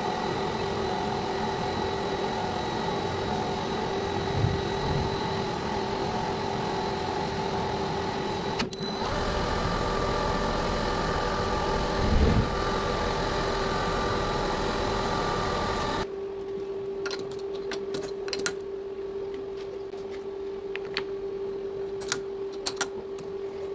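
Metal lathe running, spinning a workpiece between centres driven by a knurled roller pressed against it: a steady machine hum with a constant tone. About sixteen seconds in the running noise drops away to a quieter steady hum, with a series of light metallic clicks.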